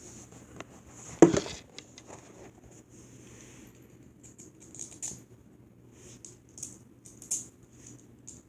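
Screws and metal parts of a box fan motor being handled and screwed back together by hand: a sharp clack about a second in, then irregular light scratchy ticks.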